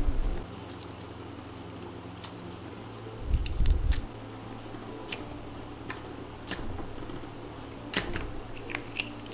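Hands squeezing, stretching and folding a lump of white slime made in boiling activator: scattered small clicks and pops with a couple of heavier low squishes, one at the start and one a few seconds in.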